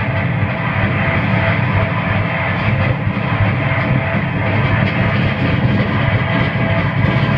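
Harsh noise music played live through amplification: a loud, unbroken wall of distorted noise with a heavy low rumble, with no beat and no melody.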